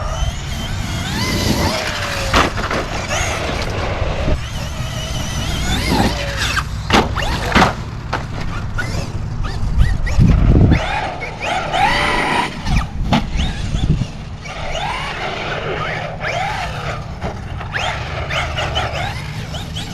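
Large brushless electric RC monster trucks being driven hard: motor whine rising and falling as they accelerate, with tyre noise, several sharp clattering knocks, and a heavy thud about ten seconds in.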